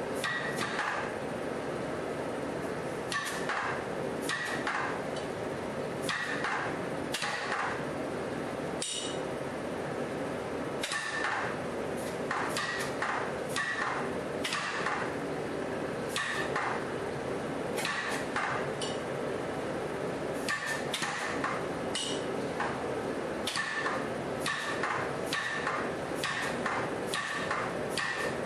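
KZ100 100-lb compressed-air power hammer's ram striking a hot set held on a hot 1/2-inch square bar, splitting it down the middle: a series of sharp metallic blows in irregular groups, several with a short ringing ping. A steady background drone runs underneath.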